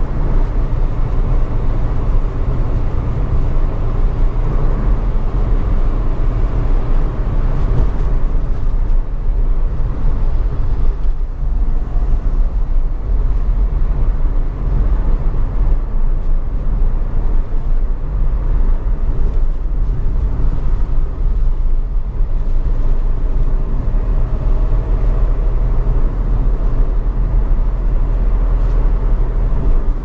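Car driving steadily, a constant low rumble of road and engine noise with no sudden events.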